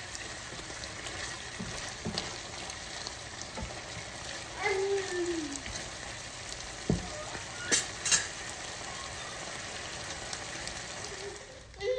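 Chicken and potatoes sizzling in sauce in a stainless steel sauté pan, with a spoon scraping and knocking against the pan as it stirs; the loudest sounds are a few sharp knocks about seven to eight seconds in. A brief voice sounds once about four and a half seconds in.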